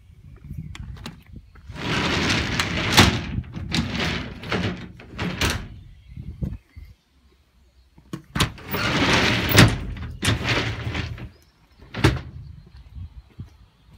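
Doors on a Unimog fire truck being slid and banged shut: two long runs of rattling, each broken by sharp bangs, the last bang near the end.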